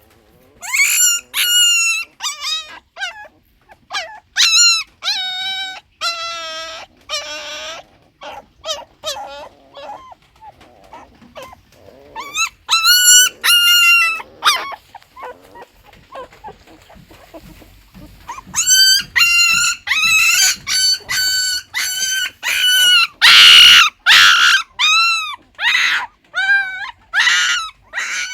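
Puppies crying: a run of short, high-pitched squealing whines, each bending in pitch. The cries pause about halfway through, then come thick and fast again in the last third.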